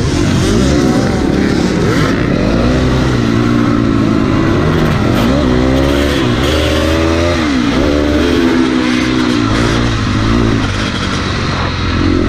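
KTM 250 XC-F single-cylinder four-stroke dirt bike engine revving hard at race pace, its pitch climbing and dropping again and again as the throttle opens and closes.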